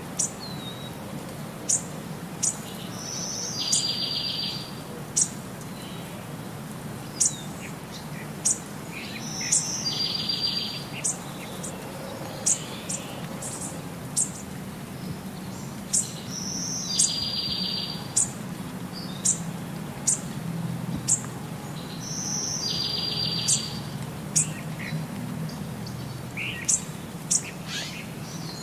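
Birds singing: sharp, high chirps come about once a second. Roughly every six seconds a short, fast trill repeats in the same pattern, over a faint low hum.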